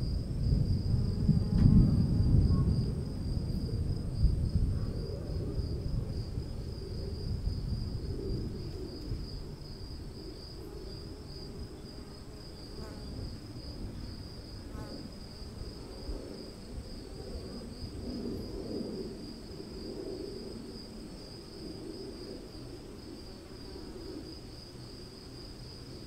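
A low rumble of distant thunder, loudest about two seconds in and then dying away. Under it, insects chirr steadily in a fine, even pulse.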